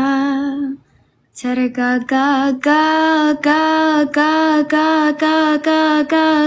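A young woman singing solo in one voice. She holds a wavering note, pauses briefly about a second in, then sings a run of short repeated notes on much the same pitch, about two a second.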